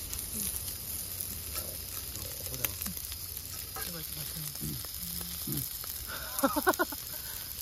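Lamb chops sizzling steadily on an iron griddle plate heated by a strong fire. Quiet voices sit underneath, with a short burst of voice about six seconds in.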